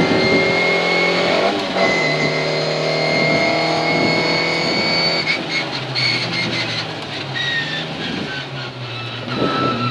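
Škoda Favorit rally car's engine heard from inside the cabin, running under load with a drop in revs about two seconds in, then easing off and quieter from about five seconds in with a few short knocks, and picking up again near the end.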